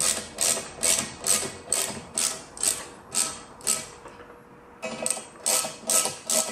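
Ratchet wrench with a 1/2-inch socket clicking in quick back-and-forth strokes, about two a second, as a nut is run down onto a bolt. The strokes pause briefly a little past the middle, then carry on.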